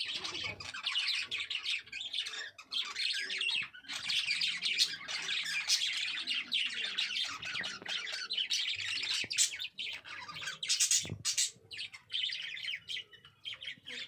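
Budgerigars chattering: a dense, continuous warble of chirps and squawks that thins out over the last few seconds, with a brief knock about eleven seconds in.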